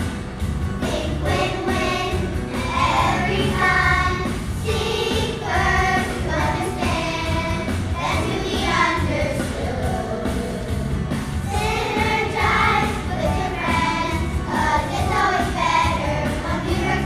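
A chorus of second-grade children singing a song together.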